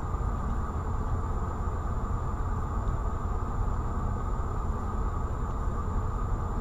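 Steady low rumble inside a stopped car, picked up by a dashcam microphone: the car's engine idling. A faint constant high whine runs through it.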